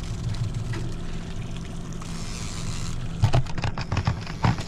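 Small outboard motor on a trolling boat running steadily at low speed, with a short cluster of clicks and knocks starting about three seconds in.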